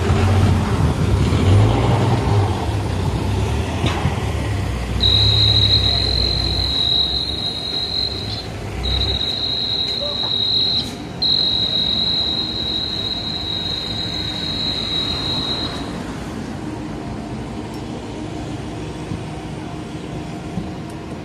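Diesel engine of a truck-mounted crane running, with a steady high-pitched electronic tone that starts about five seconds in, breaks off twice briefly, and stops after about eleven seconds. The engine rumble fades out about nine seconds in, leaving general street noise.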